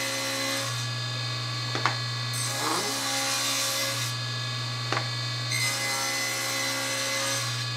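Table saw running steadily while its blade cuts a half-inch-deep rabbet into the edges of a wooden panel, one edge after another. Cuts sound until about half a second in, again from about two and a half to four seconds, and again from about five and a half to seven and a half seconds, with the saw running free in between.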